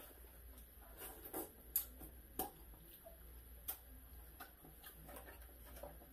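Quiet, irregular clicks and taps of fast food and paper packaging being handled at a glass-topped table during a meal, with a few sharper ticks standing out near two seconds in and again near four seconds in.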